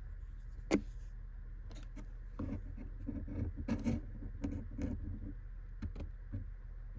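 Cat playing with a silver vine stick: one sharp click about a second in, then a few seconds of irregular scraping and rustling with small knocks, and a couple more clicks near the end.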